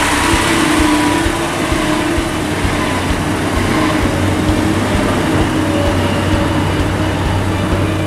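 Loaded dump truck's diesel engine running steadily as the truck pulls away down a dirt road.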